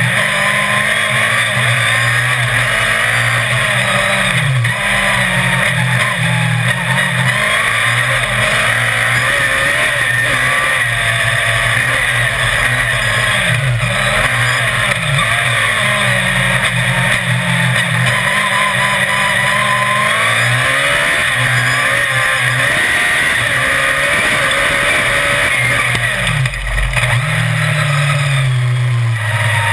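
Autocross race car's engine running hard, loud and close, its revs repeatedly rising and falling as it accelerates and lifts off.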